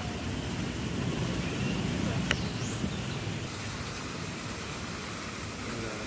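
Wind rumbling on the phone microphone over a steady outdoor background hiss, with one sharp click a little over two seconds in.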